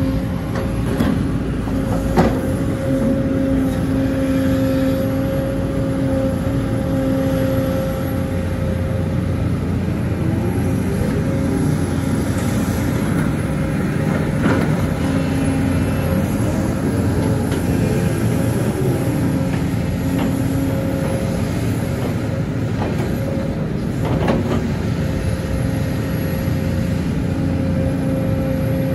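Sumitomo hydraulic excavator working: its diesel engine runs steadily under a steady whine that drops out now and then and wavers in pitch. Sharp knocks come about two seconds in, halfway through and near the end.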